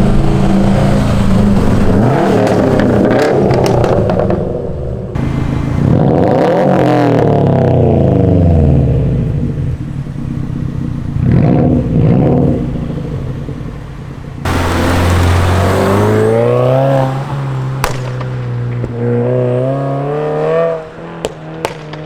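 Turbocharged Subaru flat-four engine free-revving through an aftermarket exhaust. The pitch climbs and falls several times in a few separate takes, with short blips around the middle.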